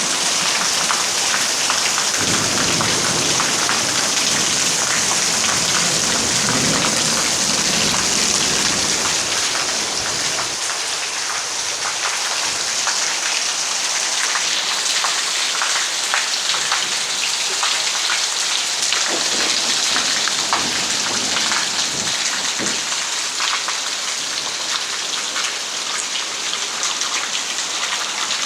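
Steady rain falling, a continuous hiss with many individual drops pattering close by.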